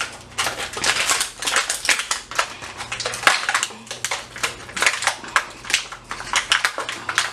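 Crinkly plastic packet being handled and rummaged through. A dense, irregular run of crackles and rustles.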